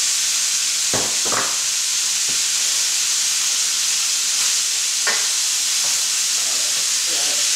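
Chicken thighs, bacon and diced onion sizzling in a stainless steel sauté pan with a steady hiss, stirred with a wooden spoon. The spoon knocks against the pan a couple of times about a second in and once more around five seconds in.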